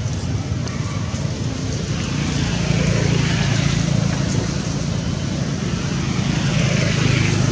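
A motor vehicle's engine hums steadily, growing louder about two seconds in and again near the end.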